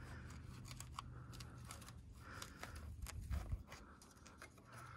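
Faint, irregular small clicks and taps from hands handling small parts, over a low hum.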